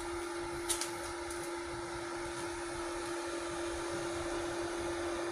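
Steady hum of a MultiPro inverter welding machine idling with its cooling fan running, carrying one steady mid-pitched tone. A short double click sounds about three-quarters of a second in.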